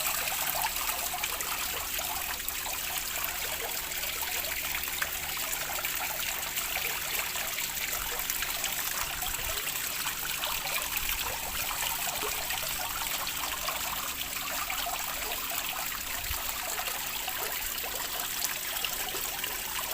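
Water trickling steadily, a continuous even splashing with no breaks.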